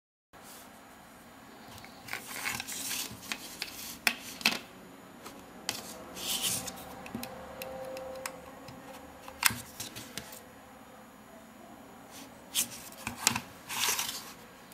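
Handling noise as a thin wire antenna is pushed into a small plastic electronic device and bent into place: scattered sharp clicks and short rubbing scrapes of fingers, wire and plastic case, over a steady faint hiss.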